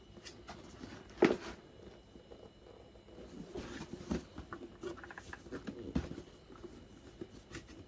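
Cardboard shoebox being handled and turned over in the hands: a sharp knock about a second in, then scattered taps, scrapes and rubbing of cardboard as the lid is worked open.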